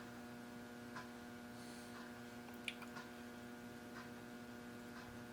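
Faint steady electrical hum in a home machine shop, with a few light clicks.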